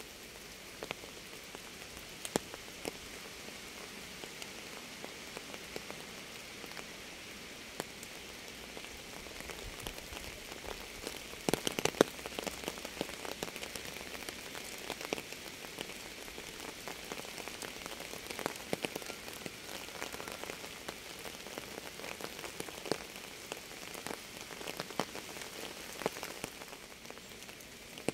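Steady rain falling, an even hiss with many individual drops ticking on a surface. A cluster of louder, close drop hits comes about twelve seconds in.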